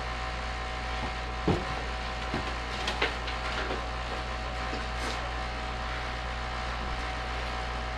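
A pause with no voice or music: a steady hum of room tone, broken by a few faint knocks and clicks, the clearest about one and a half seconds in.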